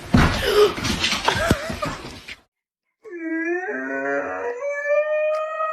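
A dog howling: one long drawn-out howl that slowly rises in pitch, starting about three seconds in after a brief gap. Before the gap there is a stretch of noisy clatter.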